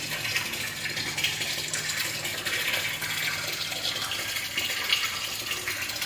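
Steady running, splashing water at a water-lily pond, with a faint low hum through roughly the first half.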